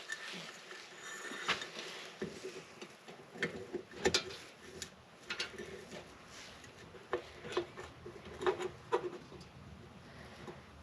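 Scattered light clicks and taps of small parts and wires being handled while reassembling the combustion-fan motor's centrifugal switch.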